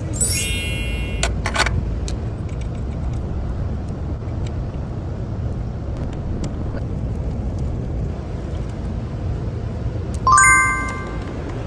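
A car engine running steadily with a low rumble. Two short ringing chime tones sound over it, one just after the start and a louder one near the end.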